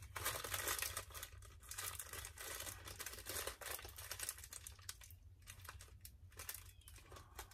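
Crinkly plastic snack pouch rustling and tearing as it is handled and opened by hand, in uneven bursts with brief pauses.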